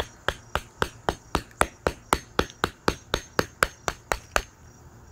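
Hammer repeatedly striking a flat-head screwdriver held as a chisel in a crack of a geode, about eighteen quick, even blows at roughly four a second that stop about four seconds in. The screwdriver is being driven along the crack to split the geode down the middle.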